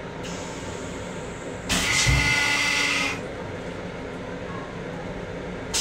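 M7 commuter railcar's stainless-steel toilet flushing: a loud whoosh with a thud and a whistling note, lasting about a second and a half and starting under two seconds in, over the steady rumble of the train. A fresh hiss starts right at the end.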